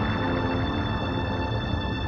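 Background music of steady held tones, with no beat.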